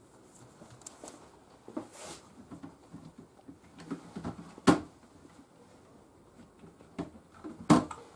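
Faint hand-handling noises on a kitchen counter: light rustles and small taps, with two sharp clicks, the louder about halfway through and another near the end.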